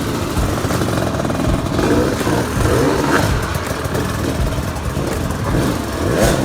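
KTM two-stroke enduro motorcycle engine revving up and down as the bike is ridden, the throttle opening and closing.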